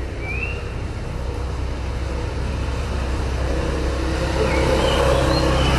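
A motor vehicle's engine running steadily with a low hum, growing louder through the second half. A brief high chirp comes just after the start.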